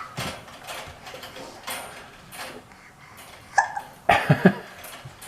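Repeated hiccups, short and sharp. The loudest come in a quick cluster of about three near the end.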